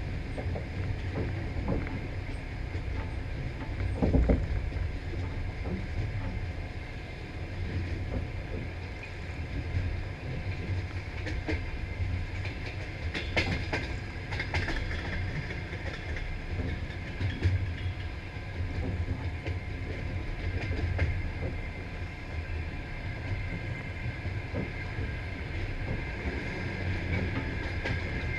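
Passenger train running on the rails: a steady low rumble with wheels clattering over rail joints and a steady high ringing tone from the singing rails. A heavier knock comes about four seconds in.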